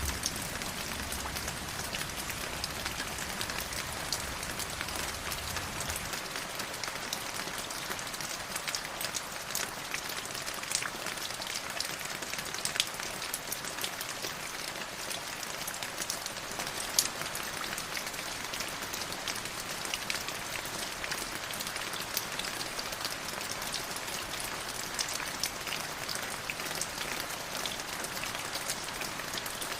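River water flowing and splashing over rocks: a steady rushing hiss full of fine droplet patter. A low rumble underneath drops away about six seconds in.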